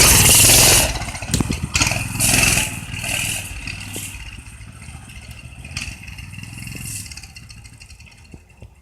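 Motorcycle engine revving loudly, then dropping off after about a second into uneven bursts of revving that grow fainter, with a few sharp clicks near the end.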